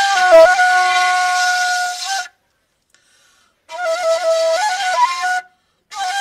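Background music: a solo flute-like wind-instrument melody moving in small steps. It breaks off for about a second and a half after two seconds, and briefly again near the end.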